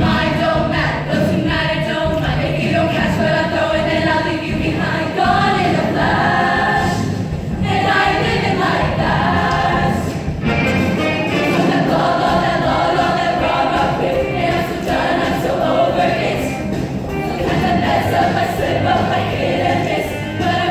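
A female show choir singing together.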